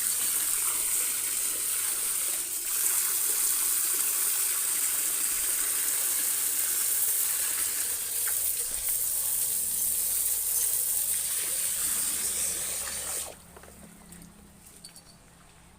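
Steady rush of running water, as from a tap or shower spray, that cuts off abruptly about 13 seconds in.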